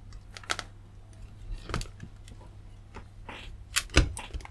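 A few separate clicks and light knocks from a circuit board and multimeter test probe being handled on a workbench, the loudest about four seconds in as the board is turned over, over a faint steady low hum.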